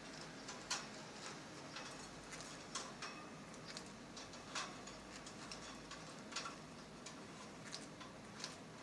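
Lovebirds tapping and clicking: a dozen or so sharp clicks at irregular intervals, with no song.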